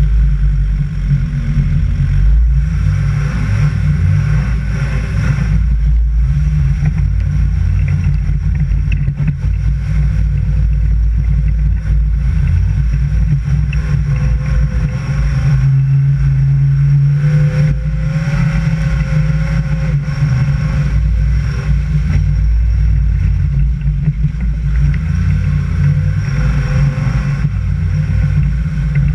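Off-road vehicle engine running while driving over a muddy dirt track, with heavy low rumble of wind and road noise on the microphone; the engine pitch wavers up and down with the throttle.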